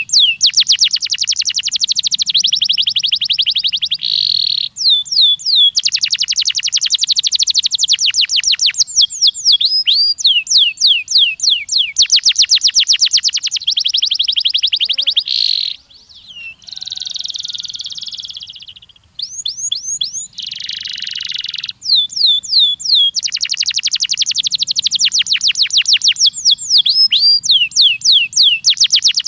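Domestic canary singing a long song of rapid trills: runs of quick repeated chirps and rolls, the phrase changing every few seconds, with two brief breaks a little past halfway through.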